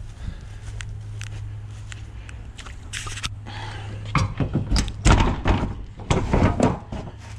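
Metal knocking and clanking at the rear bumper of a Kögel semi-trailer as a hinged steel lever and cable fitting are handled and fastened by hand, a cluster of heavy thumps from about four seconds in, over a steady low hum.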